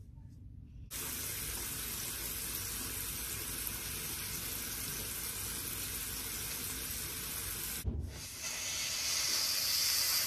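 Bathroom tap running into the sink: a steady rush of water that starts about a second in. A short break with a thump comes about eight seconds in, then the water runs on, brighter, and stops abruptly.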